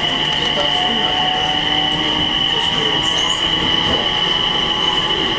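JR East E721-500 series train heard from inside while running, with the steady high whine of its Mitsubishi IGBT-VVVF inverter and traction motors over the rumble of wheels on rail.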